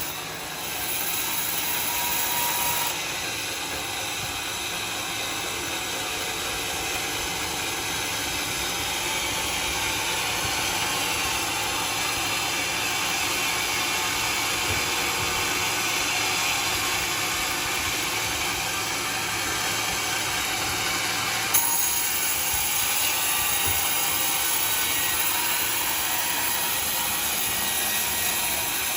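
Sawmill saw running steadily with dense mechanical noise. Its sound shifts about three seconds in, and again near three-quarters of the way through, where a short sharp click is heard.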